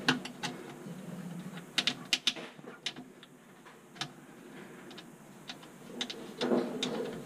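Irregular sharp clicks and taps of hard plastic as hands fit the PVC drain pipe onto the garbage disposal's outlet under the sink.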